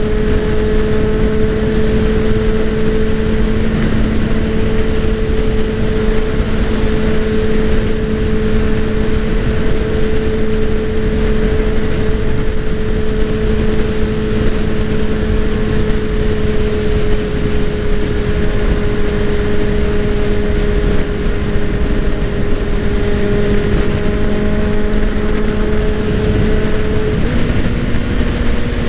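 Honda CBR 650R's inline-four engine running at a steady cruising speed under a constant rush of wind, its pitch stepping up slightly near the end.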